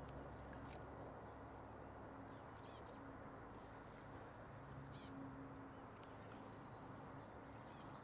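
Small songbirds singing: about four short, high, rapid trills and chirps, one every couple of seconds, over a faint hiss.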